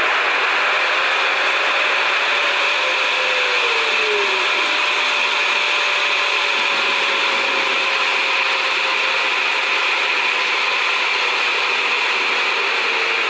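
Steady cabin noise of a jet airliner in cruise: engine drone and the rush of air past the fuselage, with a steady whine. A faint tone slides down in pitch about three to five seconds in.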